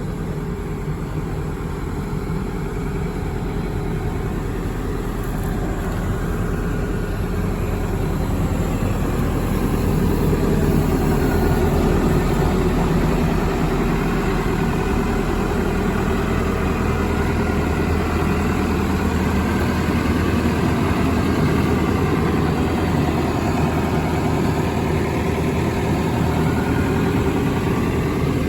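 Diesel engine of a Hyundai R130LC-3 13-tonne excavator running steadily, a little louder from about eight seconds in.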